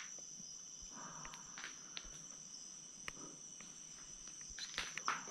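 Night insects chirring steadily in a high, even tone, with a few faint scuffs and clicks near the end.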